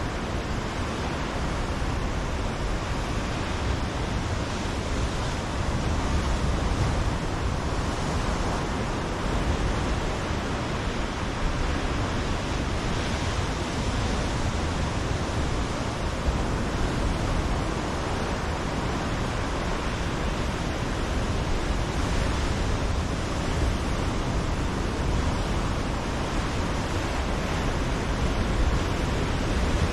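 Ocean surf breaking on a rocky shore: a steady wash of surging water that swells louder every several seconds as waves come in.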